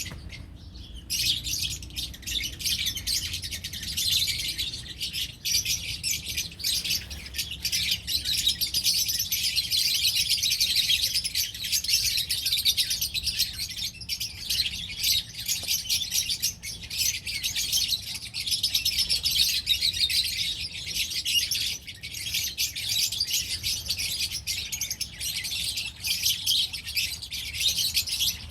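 A flock of lovebirds chirping and chattering without a break, many high-pitched calls overlapping.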